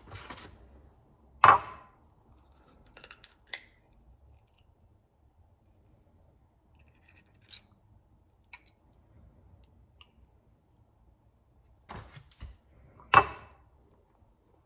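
Eggs being cracked and separated over a bowl: two sharp shell cracks, about a second and a half in and near the end, with smaller clicks and taps of shell between.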